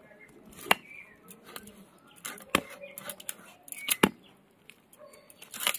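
A long heavy knife chopping raw country chicken into pieces on a wooden log block: four sharp chops, one every second and a half to two seconds, the first the loudest, with lighter knocks between.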